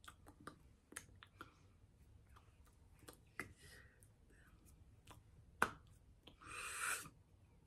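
Faint, scattered clicks and taps of a signer's hands striking and brushing against each other, with one sharper slap a little past halfway. A brief hiss follows just after it.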